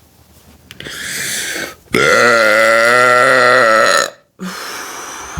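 A woman's long, loud belch lasting about two seconds, held at a low, steady pitch, brought up after drinking carbonated Red Bull and White Claw. A softer breathy sound comes just before it.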